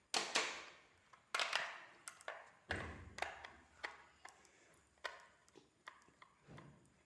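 Handling noises of an unboxing: a string of irregular sharp taps, clicks and knocks, about a dozen in all, the loudest in the first second and a half.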